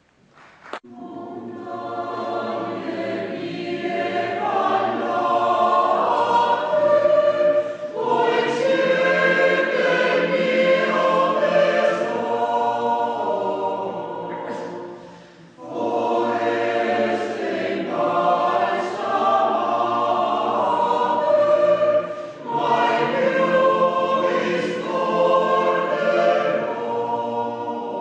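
Mixed choir of men's and women's voices singing. It starts just after a brief silence and goes on in phrases, with three short pauses between them.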